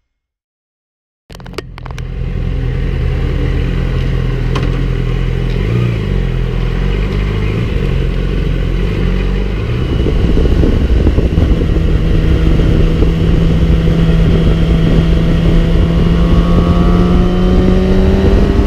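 Yamaha inline-four sport bike heard from on board, running steadily at road speed with wind rush. It comes in suddenly about a second in, grows louder about halfway, and rises in pitch near the end as the bike accelerates.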